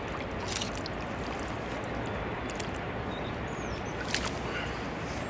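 Steady rushing background noise with a few short splashes and knocks as a large carp is lowered back into shallow lake water, the sharpest about four seconds in. A faint high chirp about three and a half seconds in.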